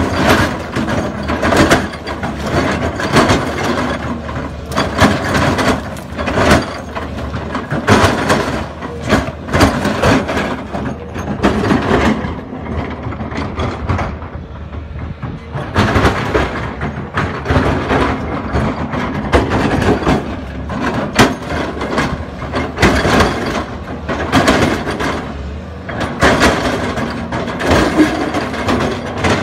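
Volvo EC210 LC crawler excavator working: its diesel engine runs under load while the bucket scrapes and breaks rock, with repeated knocks and clatter of stones. The noise eases briefly about halfway through, then picks up again.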